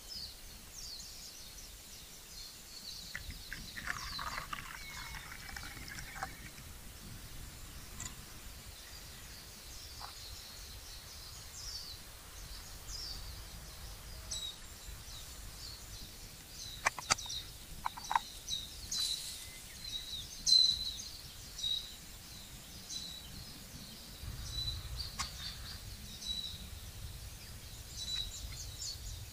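Small birds chirping and calling again and again in the woods, with a lower, falling call about four seconds in.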